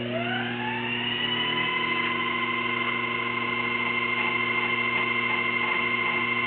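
Sherline 4000 mini lathe motor spinning up, its whine rising in pitch over the first second, then running steadily at speed.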